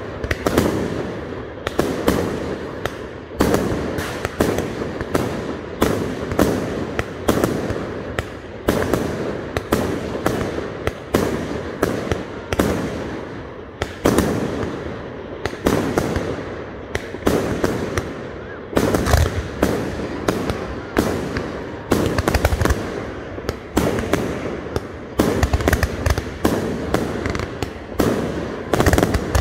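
Fireworks display: aerial shells bursting one after another, about one or two loud bangs a second, each trailing off before the next.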